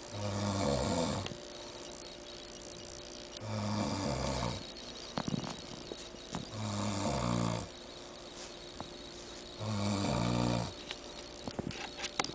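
A man snoring heavily while asleep after a drinking binge: four long, deep snores about three seconds apart.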